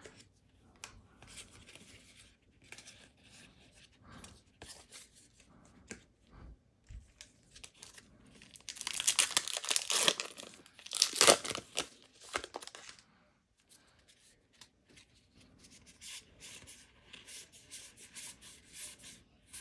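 A foil-lined Modern Horizons 2 set booster pack wrapper being torn open, with two loud bursts of crinkling and tearing about halfway through. Before it come soft rustles and clicks of cards being handled; near the end, a run of quick soft clicks as the cards are slid apart one by one.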